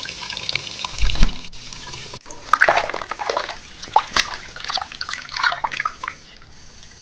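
Water splashing and sloshing in irregular bursts, with small drips and a low thump about a second in.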